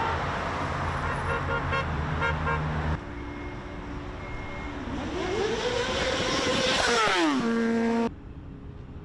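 Cars passing on a busy road, with short horn toots. Partway through, a vehicle's engine rises and then falls in pitch as it goes by, and a steady horn tone sounds just before the sound cuts off abruptly.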